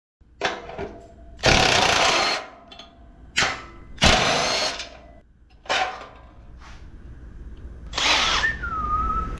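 Power drill boring holes through a sheet-steel light bracket, in several short bursts with pauses between them. Near the end the tool whines down in pitch.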